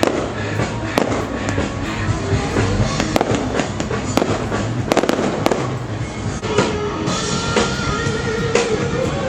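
Fireworks crackling and popping in quick, irregular succession, with music underneath; the sound cuts off suddenly.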